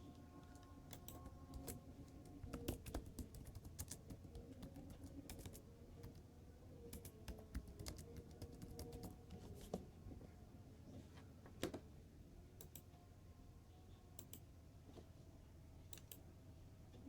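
Computer keyboard typing: faint, irregular keystrokes, thickest in the first half and thinning out toward the end.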